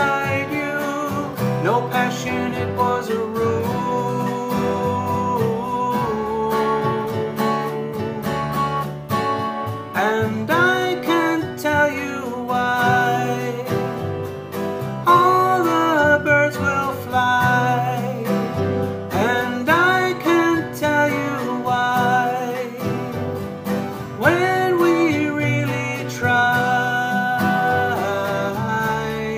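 A man singing a slow song to his own acoustic guitar accompaniment.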